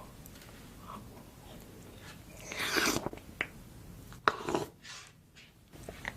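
Close-miked eating: a person bites into a large mouthful and chews, loudest about two and a half seconds in, with a sharp click a little after four seconds.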